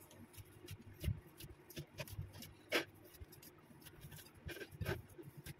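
Faint, irregular soft squishes and dull knocks of hands punching and kneading a stiff, ghee-rich flour-and-semolina dough in a glass bowl.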